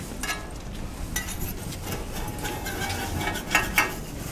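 Metal spatula clinking and scraping on a flat iron griddle as baked cakes are lifted and moved, a few short sharp clinks.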